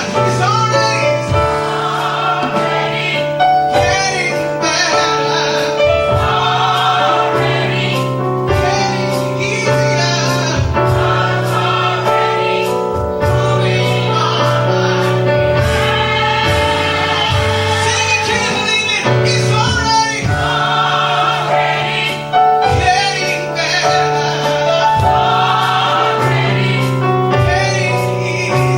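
Church gospel choir singing with a full band behind it: a sustained bass line and a steady drum beat.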